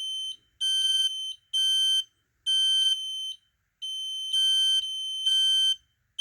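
Smoke alarms sounding together in test, a shrill high beep repeating in bursts of about half a second to two seconds with short gaps, some bursts carrying a lower second tone.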